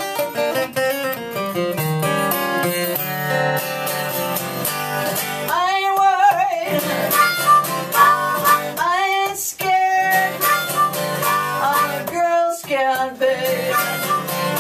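Harmonica solo, cupped against a hand-held microphone, over strummed acoustic guitar; the harmonica's notes bend in pitch several times.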